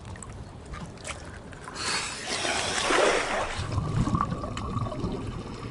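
Rushing, bubbling water that swells up and fades away over about two seconds, then a fainter low rumble with a thin steady tone.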